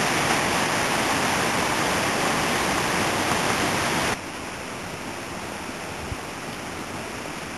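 Steady rushing noise outdoors that drops abruptly to a much quieter background about four seconds in.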